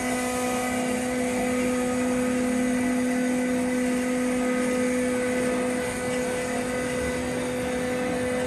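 LeBlond sliding bed engine lathe running under power: a steady machine hum with a constant gear whine from the drive and headstock.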